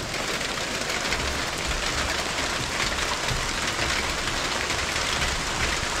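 Heavy rain pouring steadily, a dense patter of drops drumming on a corrugated tin roof.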